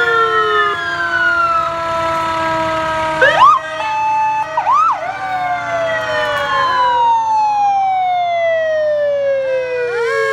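Several fire-truck sirens sounding at once: long tones winding slowly down in pitch, a few short whooping chirps about three to five seconds in, the loudest part, and a siren winding back up near the end, over the low hum of truck engines.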